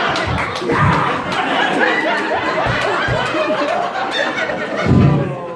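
Small audience laughing, many voices overlapping, with a few sharp clicks near the start.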